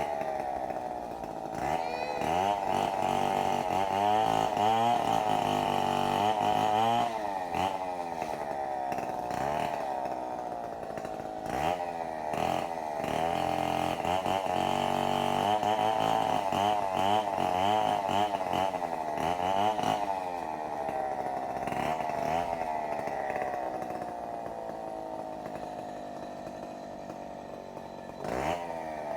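Two-stroke chainsaw running near full throttle and cutting firewood, its pitch dipping and recovering again and again as the chain bites into the wood. In the last third it slows and sinks lower before picking up sharply near the end.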